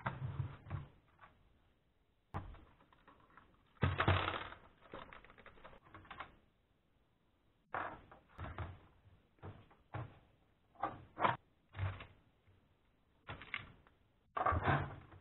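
Plastic laptop case and keyboard being handled by hand: irregular clicks, knocks and scrapes as the laptop is turned over and the keyboard is pried out of the palm rest and flipped.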